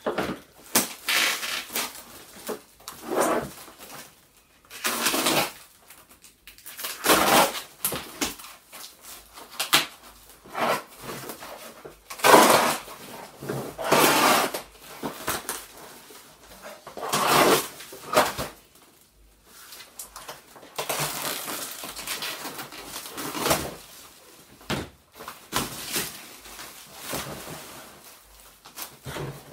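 Cardboard boxes wrapped in plastic shrink wrap being handled and pulled apart by hand: irregular crinkling and scraping rustles that come in short bursts, stopping and starting throughout.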